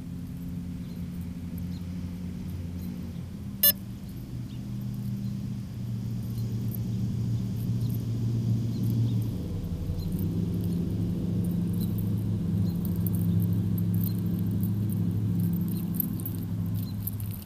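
Blade QX350 quadcopter's motors humming steadily at low speed on the ground after a landing that the pilot puts down to the remote control's battery dying. The hum shifts pitch about 6 s in and again about 10 s in, and there is one sharp click a little before 4 s.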